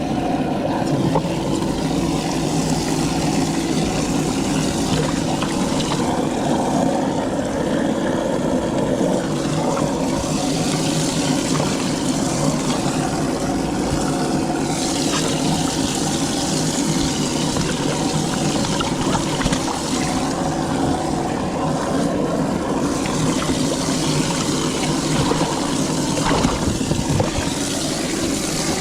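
Bass boat's outboard motor running steadily at speed, with a constant rush of water and wind.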